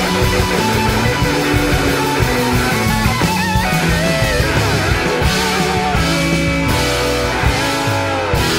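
Live rock band with an electric slide guitar solo on a Gibson SG. The lead line glides and wavers in pitch over bass and drums, with long sliding, wavering phrases around the middle and again near the end.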